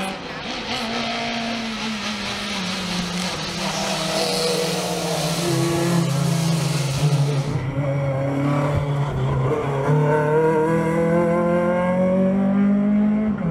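Renault Clio R3 rally car's tuned 2.0-litre four-cylinder engine revving hard at speed, its pitch climbing and dropping back at gear changes. In the first half a loud hiss of tyres and spray on wet tarmac rides over it, then stops at a cut.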